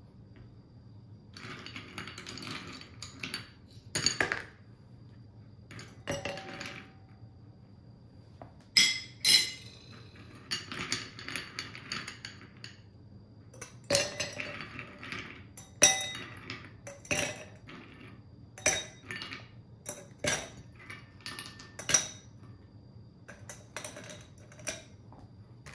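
Ice cubes clinking against glass as they are picked by hand out of a glass bowl and dropped one at a time into a stemmed glass: a dozen or so sharp clinks at irregular intervals, with soft handling between them.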